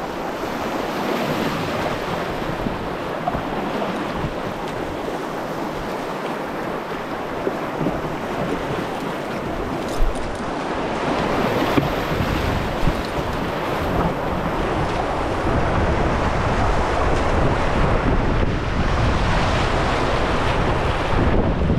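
Whitewater rapids rushing and churning around an open canoe, with wind buffeting the microphone. The low rumble grows stronger in the second half, and a few sharp knocks stand out about halfway through.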